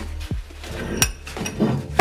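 Sharp metal clinks and knocks from an old bench vise being taken apart by hand, the loudest about a second in and at the end, over background music.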